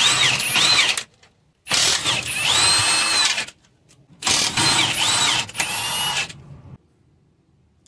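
Power tool driving a socket on a long extension, spinning 17 mm nuts off an engine mount in three runs. Its motor whine rises and falls in pitch. The first run ends about a second in, the next lasts nearly two seconds, and the last stops about seven seconds in.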